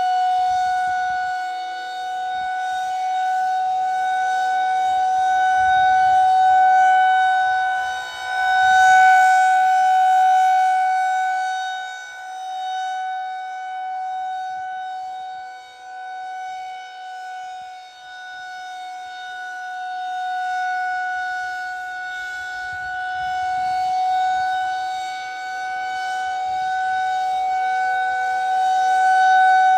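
Federal Signal 2001 rotating outdoor warning siren sounding its steady alert tone, one unbroken pitch that swells and fades in loudness every several seconds as the siren head turns.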